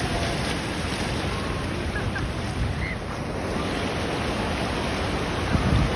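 Shallow ocean surf washing in over sand, a steady rush of foamy water, with some wind on the microphone that adds a low rumble near the end.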